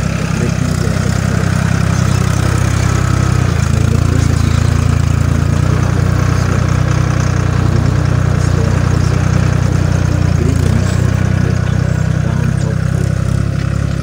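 Farm tractor's diesel engine running steadily under load as it pulls a disc plough through the soil, its note deeper and fuller for several seconds in the middle.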